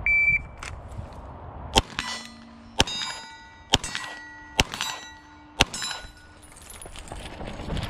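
A shot-timer start beep, then five 9mm pistol shots from a Glock 34 about one second apart, each followed by the ring of steel targets being hit. Shuffling and movement noise builds near the end.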